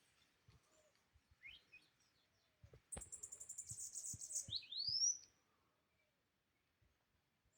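Bananaquit singing: a short, fast run of very high, thin notes a few seconds in, with quick rising chirps before and after it. A single sharp click falls just as the run starts.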